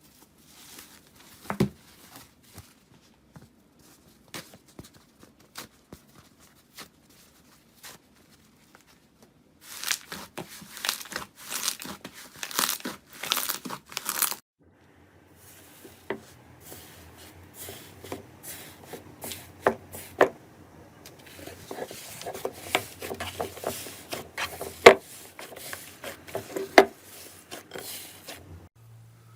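Slime being handled by hand: scattered sticky pops and clicks at first, then several seconds of dense crackling, then more crackling and popping as it is squeezed and pressed.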